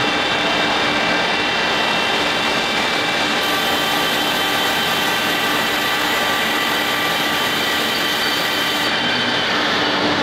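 CNC lathe running while cutting a brass part under coolant spray: a steady machine whine with several held tones over a broad noise. A high hiss comes in about three seconds in and drops away near the end.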